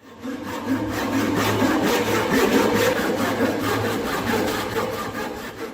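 A hand tool working wood in quick back-and-forth strokes, about four a second, with a steady low hum underneath.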